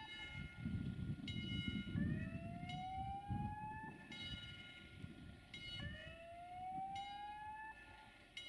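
A siren-like whooping tone that rises in pitch over about two seconds, then cuts off and starts again, repeating throughout. Under it is the low rumble of a Desiro diesel multiple unit approaching on the track.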